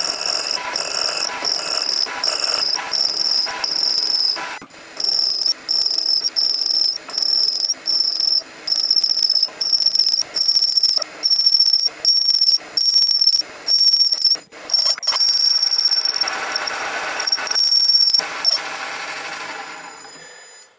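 Metal lathe turning down the end of a miniature engine's connecting rod held on a faceplate. A high-pitched whistling tone from the cutting tool, broken by short gaps about once or twice a second, rides over the lathe's running noise, and the sound dies away near the end.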